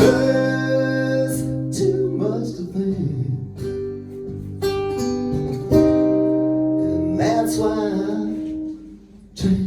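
Acoustic guitar playing the closing strummed chords of a song. The last chord is left to ring and fades out near the end.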